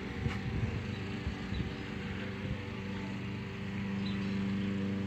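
Steady machine hum at one fixed pitch, with uneven low rumbling during the first two seconds.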